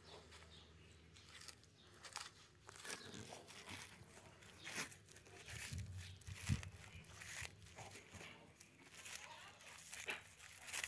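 Tortoise biting and tearing a fresh green leaf: faint, irregular crunching and ripping of leaf tissue in its beak. A low thump about six and a half seconds in.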